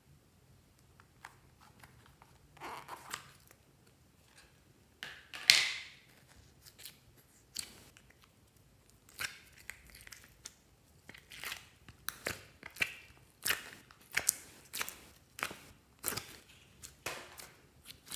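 Purple slime being pulled out of a plastic mould and kneaded by hand: irregular sticky crackles and pops, with a louder pop a little over five seconds in.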